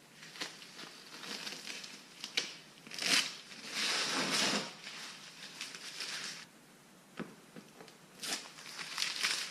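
Scratchy crinkling and rustling in uneven bursts, with small clicks between, as materials are handled while a patch is glued on. It is loudest about three to four and a half seconds in, and again near the end.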